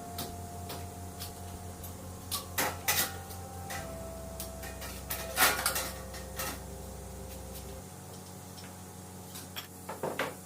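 Scattered clinks and knocks of tools and frame parts being handled while a screen frame for an air-conditioner filter is built. The loudest knocks come about two and a half seconds in, around five and a half seconds, and near the end. A steady low hum runs underneath.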